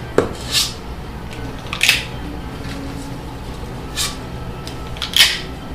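Metal cookie scoop scraping and clicking as portions of cookie dough are levelled and released onto a parchment-lined sheet pan, in about five short, sharp strokes.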